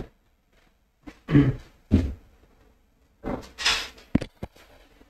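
Clip-on lapel microphone being handled and fitted: a string of dull thumps and knocks, a burst of rustling a little past the middle, and two sharp clicks near the end.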